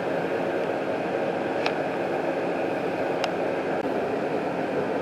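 Steady machine-like background hum and hiss, with two faint ticks about a second and a half apart.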